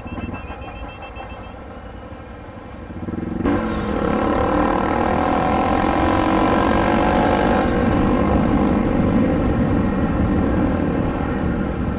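Motorcycle engine running quietly with a steady hum, then about three and a half seconds in it pulls away and runs loud and steady under way, with rushing wind and road noise over the microphone.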